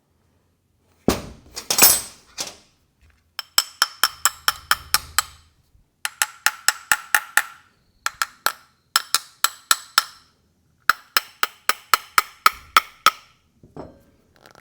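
A hand tool working on a small-engine carburetor: a burst of handling noise about a second in, then four quick runs of sharp metallic clicks, about six a second, each run lasting one to two seconds.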